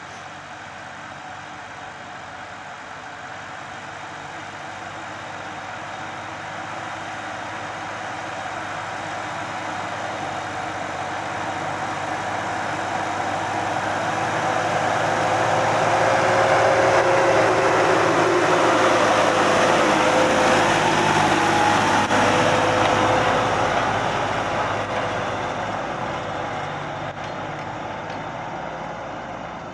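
Deutz-Fahr 5070 D tractor's diesel engine working under load as it pulls a plough, with a steady whine running through it. It grows louder over the first half, is loudest a little past halfway, and then fades as it moves away.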